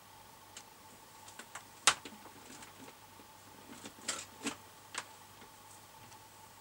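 A few scattered sharp clicks and light knocks, the loudest about two seconds in and a cluster around four to five seconds in, over a faint steady high tone.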